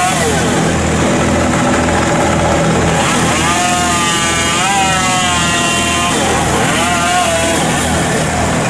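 Tree-removal machinery running steadily, with a low throb pulsing about twice a second. From about three seconds in, a chainsaw revs up and down several times.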